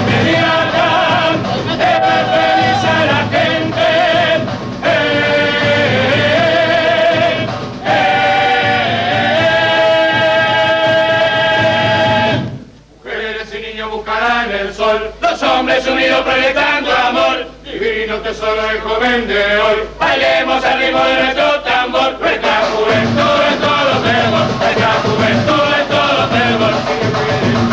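Uruguayan murga chorus of men singing in harmony, with long held notes, over the murga's percussion. About thirteen seconds in the low accompaniment drops out and the voices carry on nearly alone, and the percussion comes back in about ten seconds later.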